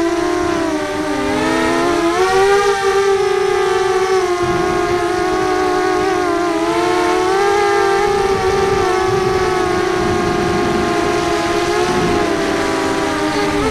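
FPV racing quadcopter's electric motors and propellers whining, several close pitches wavering up and down together with the throttle.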